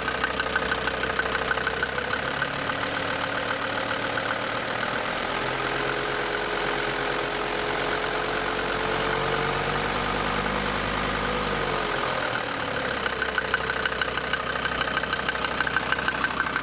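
DB29 diesel engine idling with a rapid sharp knock, which the owner takes for injector knock. About two seconds in it speeds up and holds a higher, smoother note, then drops back to idle about twelve seconds in and the knocking returns.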